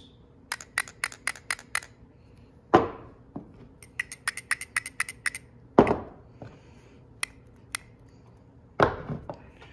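Three metal idle control valves for a Mercedes-Benz 560SEL, shaken by hand one after another so they rattle in quick runs of sharp clicks with a faint metallic ring. Three heavier thuds fall about three seconds apart as each valve is set down on the wooden bench.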